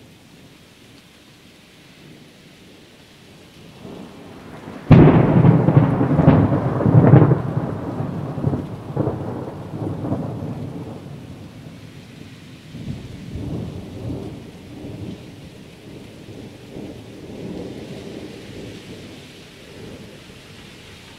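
Thunder with rain falling: a faint rumble builds, then a sudden loud crack about five seconds in rolls into a long rumble with several further peaks that slowly die away. A steady hiss of rain runs underneath.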